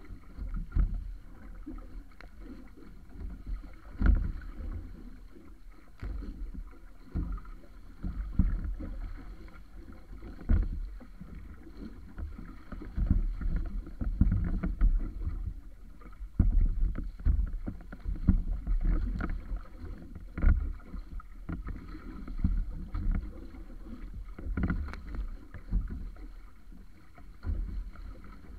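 Water rushing and splashing along the wooden hull of a wa'apa outrigger canoe under sail in choppy sea, with irregular low thumps every second or two as waves hit the hull.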